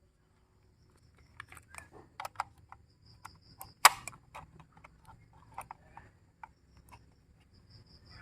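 AAA batteries being pushed into the plastic slots of a Taffware C903W battery charger, giving a string of irregular clicks and knocks, one much louder near the middle. Short runs of faint high peeps come twice.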